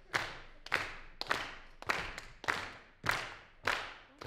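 Hands clapping in time to a steady beat, about eight even claps just over half a second apart, each followed by a short echo in the hall.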